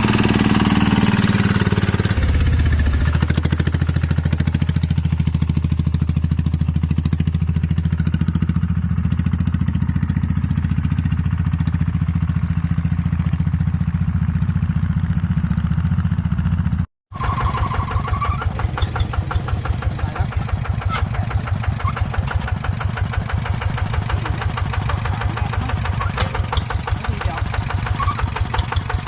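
Engine of a piece of farm machinery running. About two seconds in it slows from a higher speed to a steady idle. After a brief break near the middle it runs on with a rapid, even chugging.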